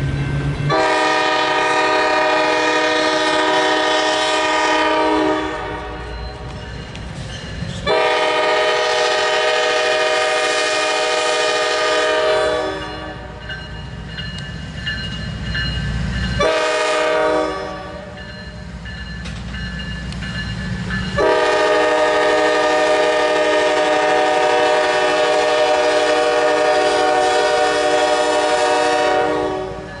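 Nathan K5LAR24 five-chime air horn on a Norfolk Southern GE Dash 9 locomotive sounding the grade-crossing signal: two long blasts, one short, then a final long blast held longest. The locomotives' diesel engines rumble underneath as the train approaches.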